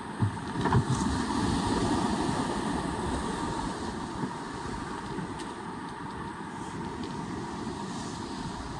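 Boat under way in choppy water: a steady mix of engine, water rush and wind, with a few thumps in the first second.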